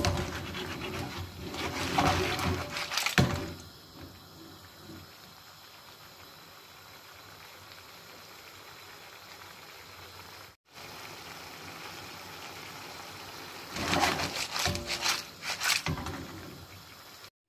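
Seafood pasta of cavatelli, mussels, clams and prawns being tossed in a frying pan, the shells and pasta clattering against the pan in two spells, at the start and again about fourteen seconds in. Between them the sauce sizzles with a steady hiss.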